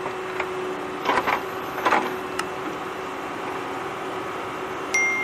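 Green plastic toy excavator bucket scraping into a pile of gravel, with two crunchy scrapes about one and two seconds in, over a steady small-motor whir. A sharp click comes near the end.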